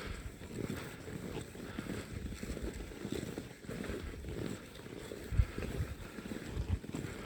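Wind buffeting the microphone, an uneven low rumble, with two low thumps near the end.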